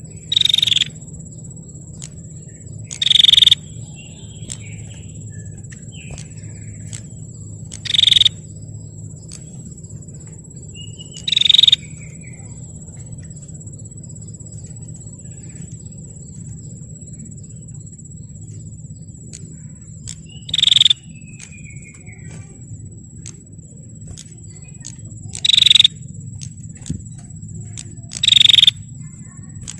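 Female prinia (prenjak) giving seven short, loud trilled calls at irregular gaps of a few seconds, some followed by faint softer chirps. A steady high-pitched whine and a low hum run underneath.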